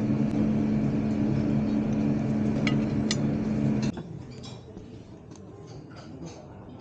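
A steady low machine hum that cuts off suddenly about four seconds in. After it comes a quieter stretch of light clinks from metal serving tongs and dishes.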